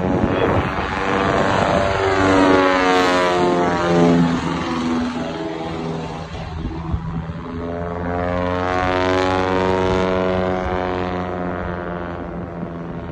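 Single-engine propeller aircraft flying close past, its engine and propeller drone swelling and shifting in pitch as it passes, twice: once in the first few seconds and again just past the middle.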